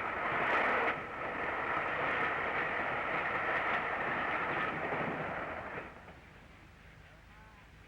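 Flying Scotsman, an LNER A3 Pacific steam locomotive, running at speed with its train: a loud rushing noise that drops away sharply about six seconds in.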